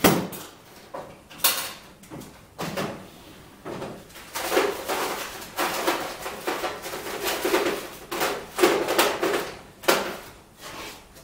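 Workshop parts being rummaged through out of view: irregular knocks and clatter, with a longer stretch of scraping and sliding in the middle.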